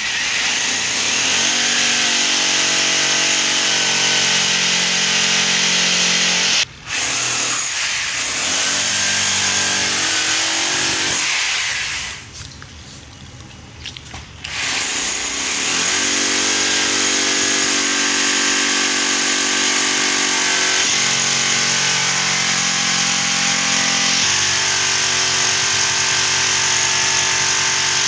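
Corded electric drill boring into a plastered wall, running at full speed in long stretches. It stops for a moment about seven seconds in, and again for a couple of seconds around twelve to fourteen seconds, before drilling resumes.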